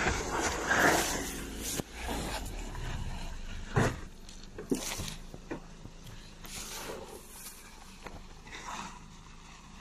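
Toyota RAV4's engine running at low revs as it crawls over a rutted dirt slope with its differential e-locker engaged, mixed with scattered short knocks and crunches. The engine fades as the vehicle pulls away.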